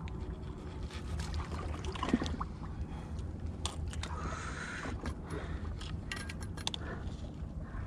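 Scattered clicks, knocks and light rattles of fishing tackle being handled, with one louder knock about two seconds in, over a steady low rumble.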